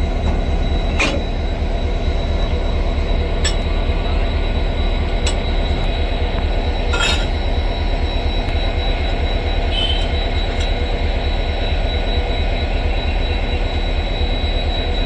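Railway locomotive and coaches moving slowly during shunting: a steady low rumble with a thin steady high tone, and a few sharp metallic clanks, the largest about seven seconds in.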